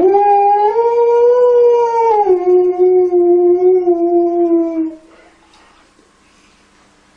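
A husky-type dog howling in one long howl of about five seconds. The howl rises a little at the start, drops in pitch about two seconds in, then sinks slowly and stops.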